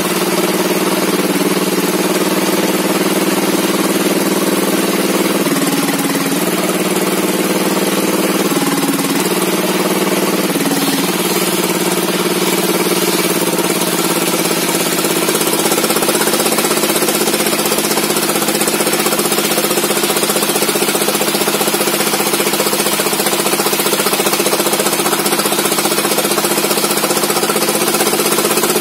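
Engine of a log-sawing machine running steadily under power, its pitch dipping briefly three times in the first eleven seconds before holding steady.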